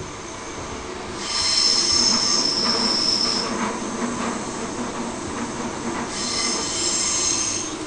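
Steel wheels of an electric suburban train squealing against the rails while the carriage runs on: a high, steady squeal starts about a second in and lasts about two seconds, then comes again near the end.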